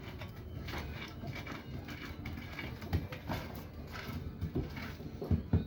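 Irregular knocking and clattering over a low rumble, the knocks sharper and louder near the end.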